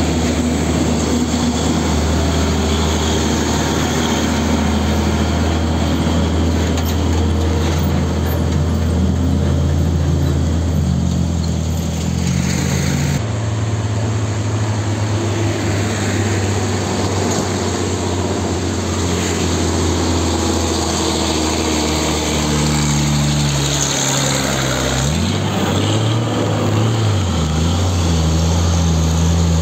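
Heavy loaded diesel trucks pulling up a grade: first a Hino 500 dump truck, then a container truck that passes close by. Steady, loud engine drone, whose pitch dips and climbs again about five seconds before the end.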